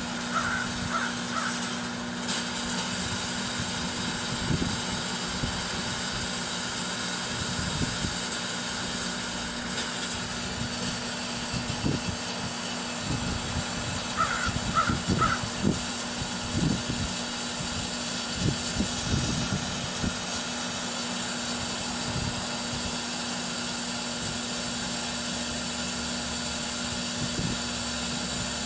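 1984 Kenmore microwave oven running with a steady hum while a kiwi inside sizzles, with irregular pops and crackles through the middle of the cooking. A bird calls in short runs of three notes near the start and again about halfway through.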